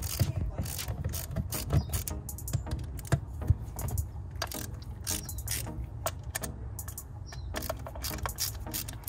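Hand socket ratchet clicking in short, uneven runs as screws on a small metal housing are worked loose, with scattered knocks of metal parts and tools.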